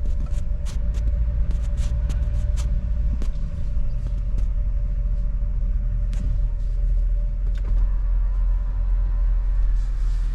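Low, steady engine and road rumble heard from inside a pickup truck's cabin while it creeps along in traffic. A steady hum fades out about seven seconds in, and sharp clicks come now and then.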